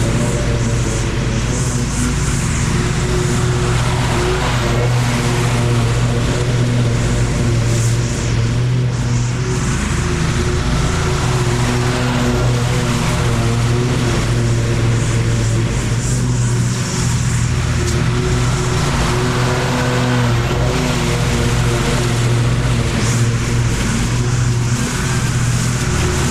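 Lawn mower engine running steadily at constant speed.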